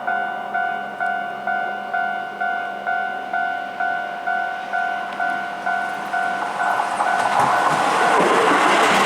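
Japanese level crossing's electronic warning bell ringing about twice a second. About seven seconds in, a Keihan Main Line electric train arrives and passes over the crossing, its running noise rising and drowning out the bell.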